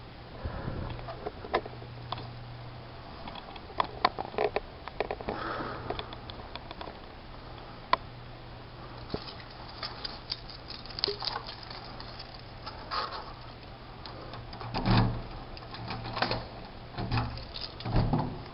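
Scattered light clicks, taps and rustles over a steady low hum, with a few louder knocks and thumps near the end.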